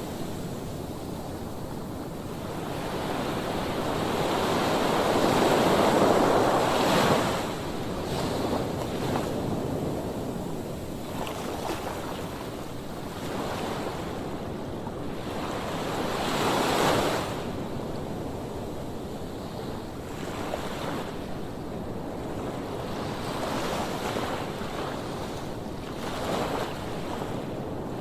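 Rushing noise of waves and wind, swelling to its loudest about five to seven seconds in and again briefly around seventeen seconds.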